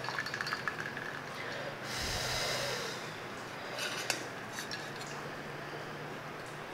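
Noodle cooking water pouring from a tilted stainless steel pot onto a plate, a brief pour about two seconds in, with light clicks before it and a few metal clinks of a wire strainer against the pot after it.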